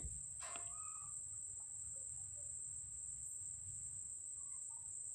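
A continuous high-pitched insect trill, like a cricket's, with a few faint short chirps.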